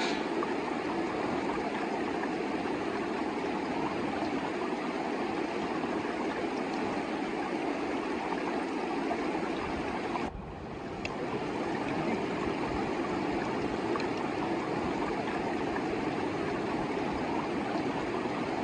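Himalayan mountain river rushing steadily over rocks. The sound drops out briefly about ten seconds in, then returns.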